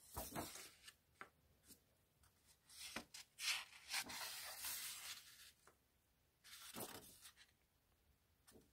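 Sketchbook pages being turned by hand: dry paper rustling and sliding in a few short bouts, the longest about three seconds in.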